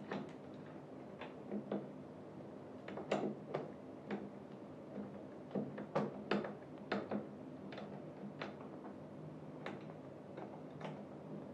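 Screws being fitted and turned to fix a gaming chair's backrest to its seat: irregular sharp clicks and light knocks, a couple a second at times.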